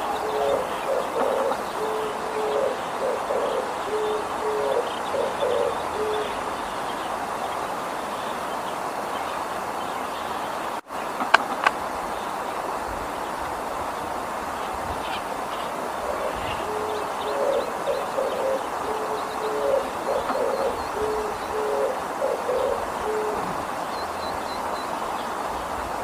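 Oriental turtle dove singing its low, hooting coo phrase (the 'de-de-poppo' song) over and over in two bouts: the first ends about six seconds in, the second starts about sixteen seconds in. Two sharp clicks come near the middle, over a steady background hiss.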